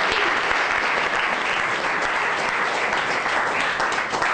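Audience applauding, steady dense clapping that tapers off at the end.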